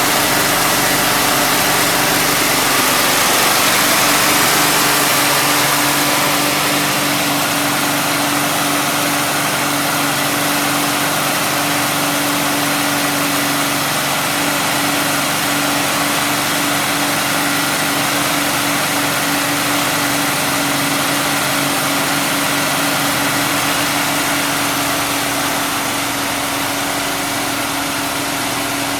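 An engine idling steadily, with an even hum and no revving.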